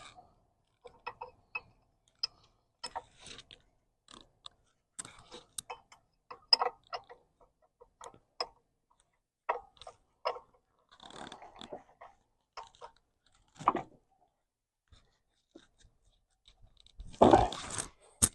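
Scattered short clicks and scrapes of an 18 mm line wrench working on a tight power steering hose fitting, with one louder scrape about a second before the end.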